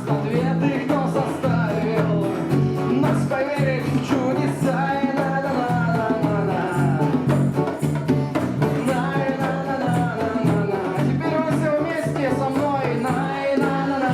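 Live rock band playing the song, with a melody line over a steady, repeating bass pattern.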